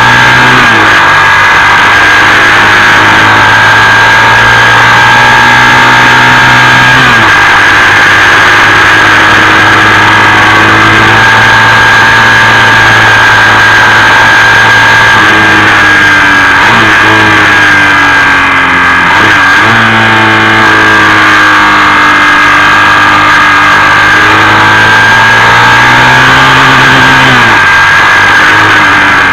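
Motorcycle engine running under way, its note rising and falling a few times as the rider changes speed, with steady wind rush on the microphone.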